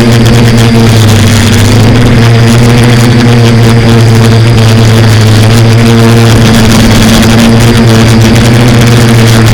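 Quadcopter's electric motors and propellers running with a loud, steady hum, with a wash of air noise over it.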